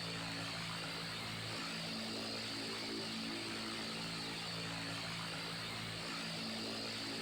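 Electric fan running steadily: an even rushing hiss with a low motor hum whose tones shift slightly every few seconds.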